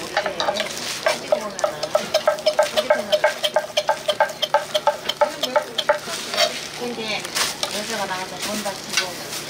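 Metal spatula striking and scraping quickly on a hot pan or griddle, about five ringing taps a second for several seconds, over the sizzle of food frying.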